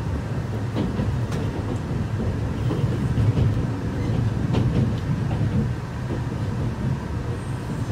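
Running noise inside a limited-express train car: a steady low rumble of the train moving along the rails, with a few faint clicks.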